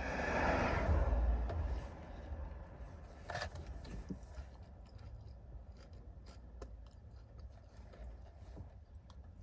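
Close-up eating sounds: a rustle of handling in the first second and a half, then soft chewing and crunching with scattered small clicks.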